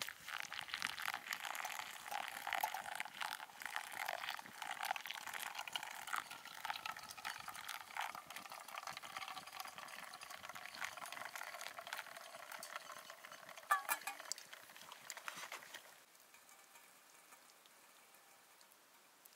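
Hot water poured in a thin stream onto ground coffee in a paper filter, a steady splashing trickle that stops a few seconds before the end. Shortly before the pour ends there is a brief knock.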